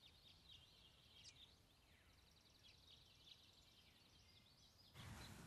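Near silence, with faint birds chirping and trilling in the background. Low background noise comes up near the end.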